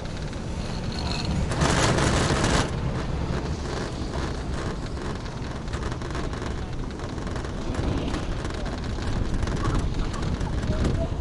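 Riding a Taihei Sakudo high-speed quad chairlift: a steady rumble and rattle with wind on the microphone. About two seconds in there is a louder rushing burst that lasts about a second.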